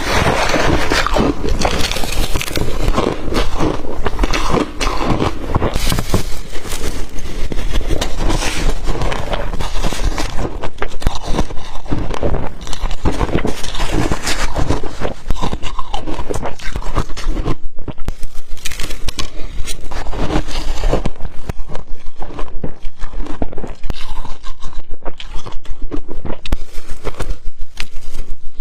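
A person biting and chewing blender-crushed ice close to the microphone: a continuous run of crisp crunches and crackles, the crunches becoming sharper and more separate in the second half.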